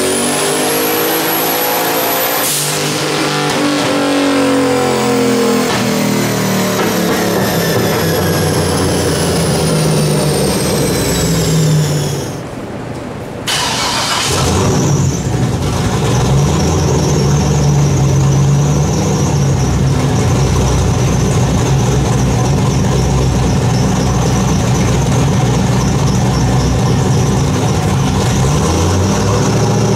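Turbocharged 5.3 V8 with a single S475 turbo: a high turbo whine peaks and the revs wind down slowly after a full-throttle pull. After a brief drop about 12 seconds in, the engine runs steadily at lower revs and starts to climb again near the end.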